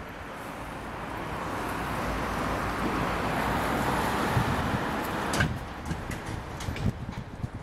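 A car passing on the road, its noise swelling to a peak about four seconds in and then fading, with a few sharp clicks in the last couple of seconds.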